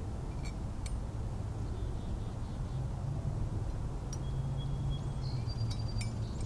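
Quiet outdoor ambience: a steady low rumble with a few faint, short high chirps and clicks.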